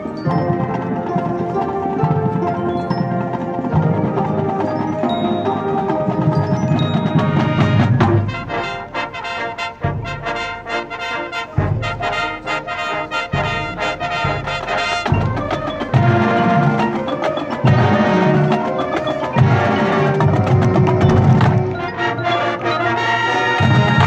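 Marching band playing: brass chords over marimbas and other mallet percussion from the front pit. From about eight seconds in, the music turns to strong rhythmic accents.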